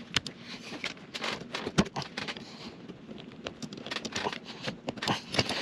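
Irregular small clicks, taps and rubbing as a new rubber vent-window seal is pushed into the channel of a chrome frame with a plastic trim stick.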